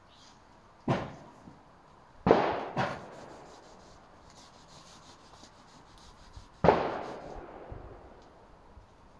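A cloth slapped against and worked along a metal pipe pull-up bar. There are four sharp knocks that ring off briefly: one about a second in, two close together around two and a half seconds, and one near seven seconds, with faint rubbing between them.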